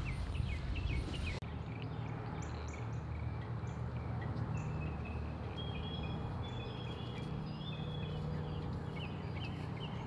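Outdoor ambience: birds chirping now and then over a steady low background rumble.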